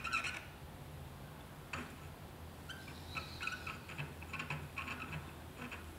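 Soldering iron held on a copper radiator core: flux and lead solder give off faint, irregular crackles and little squeaky sizzles, over a steady low hum.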